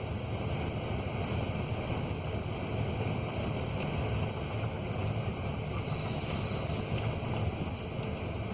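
Steady low rumble of a truck driving slowly over rough dirt yard roads: engine and tyre noise.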